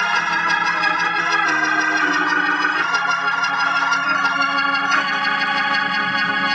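Hammond organ playing sustained chords through a tube amplifier just fitted with new capacitors, the chords and bass notes changing every second or so.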